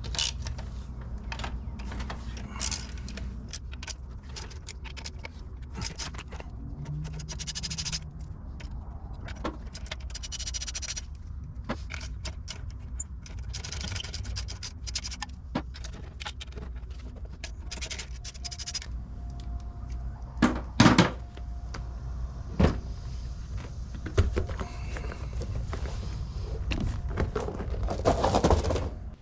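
Metal hand tools and loose bolts clinking, scraping and knocking at irregular moments while an ATV front axle and its fittings are taken off, with a few louder knocks about two-thirds of the way through.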